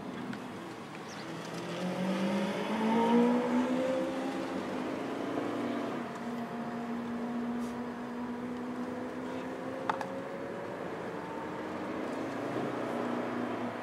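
Lamborghini Aventador Roadster's V12 pulling away, its pitch rising for a couple of seconds, then cruising steadily at low revs, heard from inside a following car. A single sharp click comes about ten seconds in.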